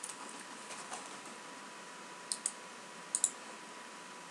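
Computer mouse button clicks: two pairs of quick, sharp clicks about a second apart, over a faint steady hiss with a thin steady tone.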